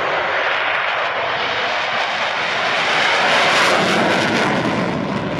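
Loud F-16 Fighting Falcon jet noise. It swells to a peak about three and a half seconds in, then eases off as the jet passes.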